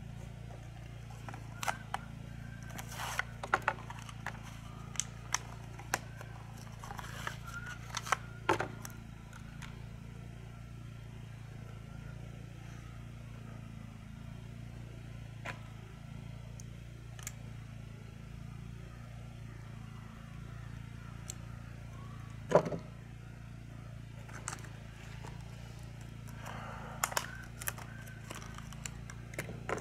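Plastic packaging crinkling and small hardware parts clicking as they are handled, in scattered bursts, busiest in the first several seconds with a sharper click in the latter half, over a steady low background hum.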